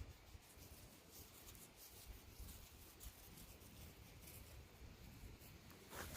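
Near silence, with faint scattered rustling and light ticks and a slightly louder rustle near the end.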